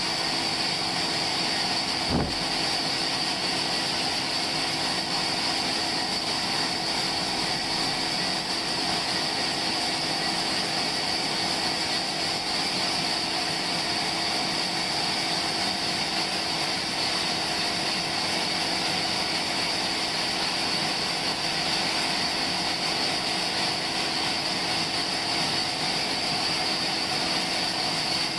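Sawmill machinery running steadily, a constant mechanical hum with a high whine over it and one short knock about two seconds in.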